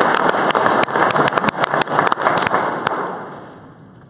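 Applause from the audience and the seated panel, a burst of many hands clapping that dies away about three seconds in.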